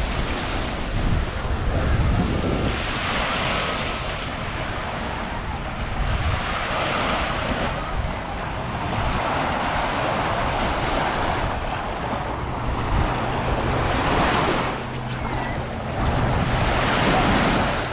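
Sea waves washing onto a sandy beach, the surf swelling and easing every few seconds, with wind rumbling on the microphone.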